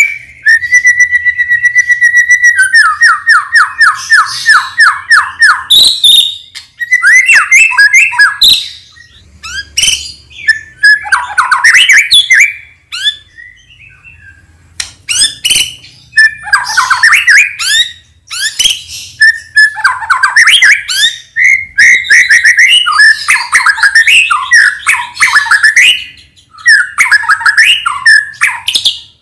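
White-rumped shama (murai batu, Medan strain) singing loudly: a long held whistle, then a fast rattling trill, then a run of varied whistled and chattering phrases with short pauses between them.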